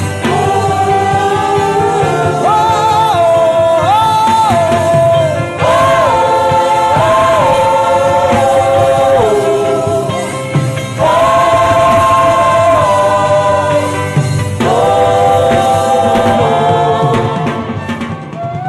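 Gospel worship humming: wordless voices layered in harmony, gliding together between long held notes, over a steady low accompaniment.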